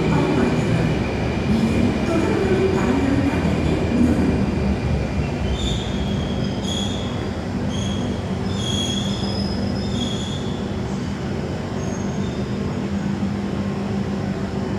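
Singapore MRT train moving alongside the platform behind the screen doors: a steady low rumble, with a string of short, high wheel squeals from about five to ten seconds in.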